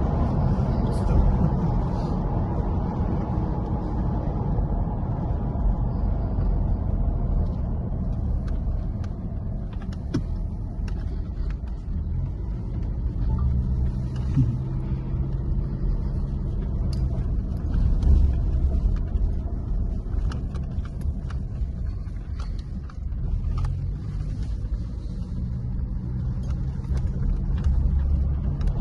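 A car being driven: steady engine running and low road rumble.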